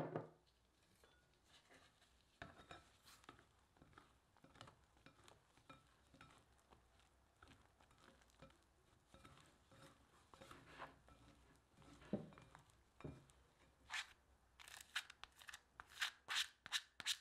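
Two plastic dough scrapers cutting and folding a crumbly cornbread dough in a glass bowl: faint, scattered scrapes and taps, with a knock at the start and a quicker run of sharper scrapes near the end.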